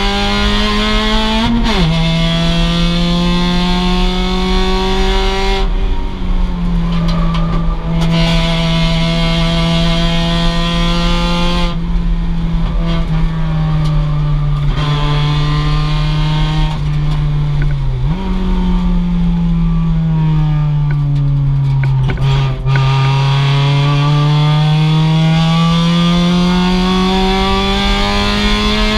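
2006 Mazda MX-5's stock 2.0-litre four-cylinder engine running hard at racing pace. Its pitch climbs steadily under acceleration and drops sharply at upshifts, once about two seconds in and again around eighteen seconds. In between it sinks more gradually as the car slows for corners.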